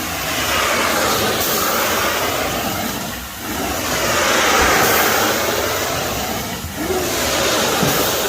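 Suction rush of a truckmount-powered carpet extraction wand drawing air and water through the carpet, pulled in long strokes that dip about every three and a half seconds.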